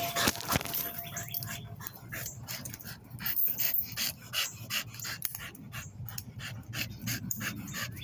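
American pit bull terrier panting hard close to the microphone, quick even breaths at about three or four a second.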